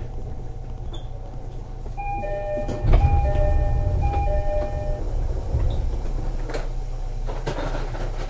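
Inside a JR East 205 series commuter train car: the two-note door chime rings three times while the sliding doors work, with a loud thud about three seconds in, over the car's steady low hum.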